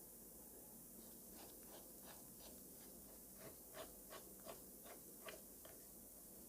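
Near silence with a dozen or so faint, irregular small clicks and taps, as when a watch case and small tools are handled on a workbench.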